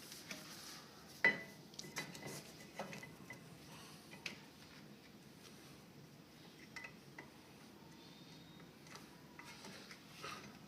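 Scattered light metal clinks and knocks as brake pads and caliper parts are handled and tried for fit. The loudest clink comes about a second in.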